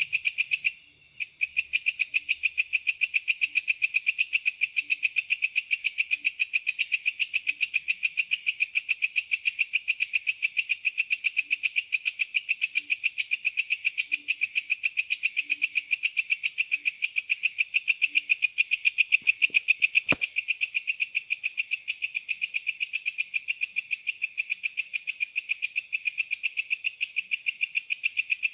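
Night insects trilling in a rapid, even pulsing chorus, high-pitched and continuous. It drops out briefly about a second in, and there is a single sharp click about twenty seconds in.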